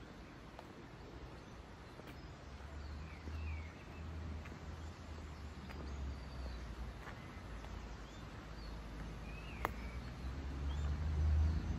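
Small birds chirping in short scattered calls, over a low rumble that grows louder toward the end, with one sharp click near the end.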